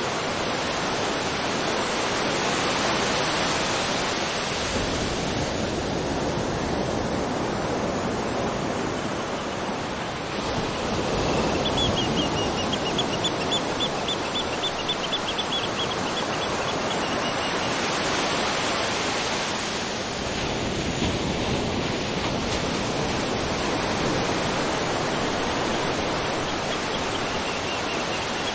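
Waterfall: a steady rush of falling water. Midway a high trill of short chirps, about four a second, runs for about five seconds, and comes back briefly near the end.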